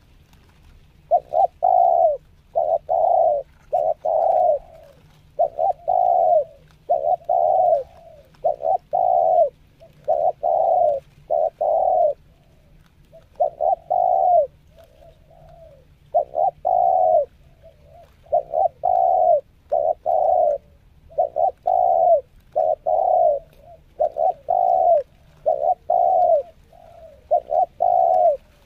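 Spotted dove (tekukur) cooing over and over: a long series of low coos in short runs with brief pauses between them.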